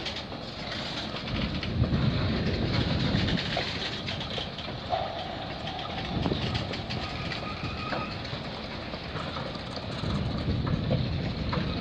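Freight train of tank cars and steel coil cars rolling past a level crossing, a steady rumble with the wheels clicking over the rail joints.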